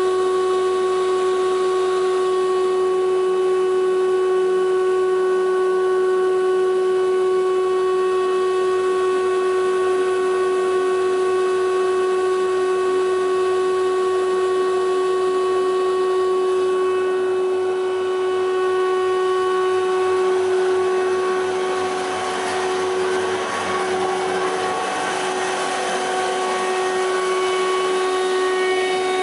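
Guilliet LKL thickness planer running with no board in it: a steady whine made of several constant tones. A rougher noise rises for a few seconds about three quarters of the way in.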